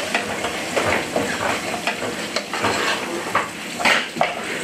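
Chopped onion, garlic and peppers sizzling in a saucepan on a gas hob while being stirred with a wooden spoon, which clicks and scrapes against the pan irregularly.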